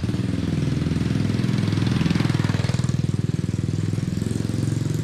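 Motorcycle engine running close by with a rapid, even pulse, a little louder about two seconds in.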